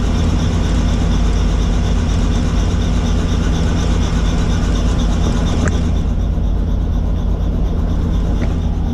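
Helicopter running with a steady low rotor and engine drone and a hiss above it. The higher hiss drops away about six seconds in.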